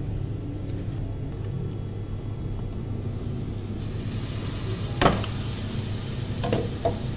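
Glass pot lid with a steel rim clinking sharply once as it comes off an aluminium cooking pot, followed by two lighter knocks near the end, over a steady low kitchen hum.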